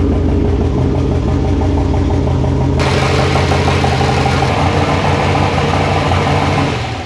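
Turbocharged pickup truck engine idling steadily on Holley fuel injection, running newly after a missing tach signal kept the injectors from firing, its timing tables still being set.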